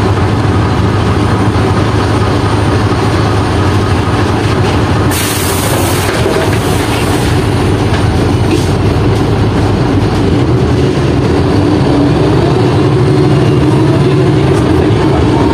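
Interior of an old Ikarus articulated diesel bus, in poor condition, under way: a steady engine drone with a strong low hum and rattling. About five seconds in there is a hiss lasting about two seconds, and near the end a rising whine as the bus picks up speed.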